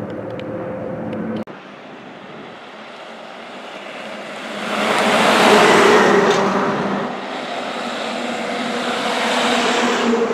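An aircraft engine drones briefly and is cut off sharply. Then comes road noise: a loud rushing swell about halfway through, and a fire engine's diesel engine rumbling louder as it approaches near the end.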